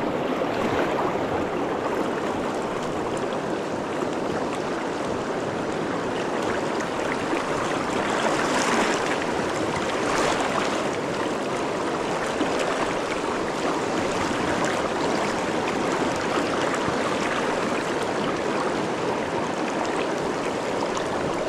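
Fast-flowing river water rushing steadily, close to the microphone, with two brief brighter swishes about eight and ten seconds in.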